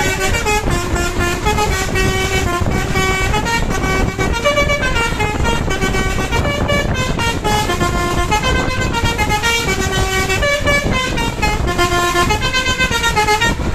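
Basuri telolet multi-tone bus air horn playing a melody, note after note without a break, over a steady low rumble; the tune cuts off at the very end.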